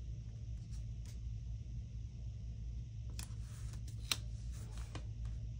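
Sticker sheets and paper being handled on a desk: soft rustles and small clicks starting about three seconds in, with one sharper tap just after four seconds, over a steady low hum.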